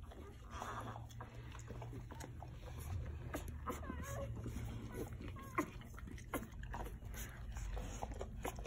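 Newborn golden retriever puppies nursing: many small wet suckling clicks and smacks, with a short wavering puppy whine about four seconds in, over a low steady hum.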